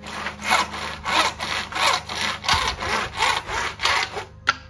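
Handsaw cutting through a white uPVC profile in quick, regular back-and-forth strokes, about three a second, stopping shortly before a single sharp click near the end.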